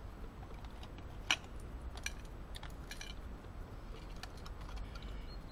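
A few sharp clicks and clinks of small metal camping gear being handled: a stainless steel cup and what it holds. The loudest click comes about a second in.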